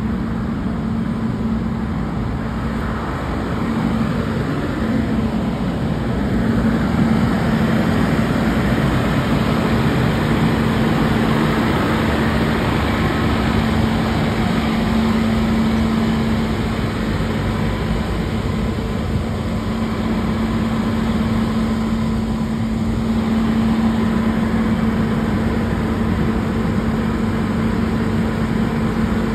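Fire truck's diesel engine running steadily, a constant droning hum with little change in level.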